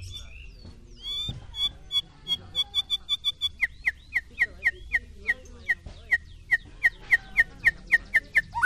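White-rumped shama (murai batu) singing a run of short, sharp, repeated notes. From about a second in, a high note repeats faster and faster. About three and a half seconds in it switches to a lower, slightly sliding note, repeated about four times a second.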